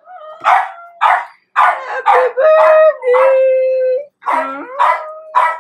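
A woman crying with emotion: short sobbing gasps broken by drawn-out wails, one of them about a second long.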